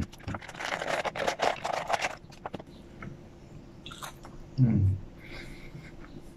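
French fries tipped out of a paper carton onto a wooden table, a dense rustling patter of about two seconds, followed by eating the fries by mouth, with a short low hum from the eater about four and a half seconds in.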